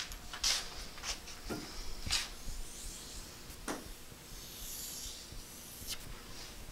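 Chalk scratching on a blackboard as a sketch is drawn: a handful of short, quiet strokes spread out, with one longer, fainter scratch a little past the middle.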